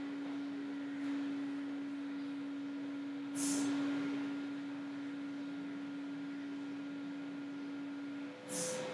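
A steady, single-pitched electrical hum from the recording setup, with two short hisses about three and a half and eight and a half seconds in.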